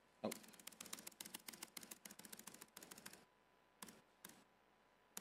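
Computer keys clicking in a quick run for about three seconds, then two single clicks: keys pressed in rapid succession to skip through presentation slides.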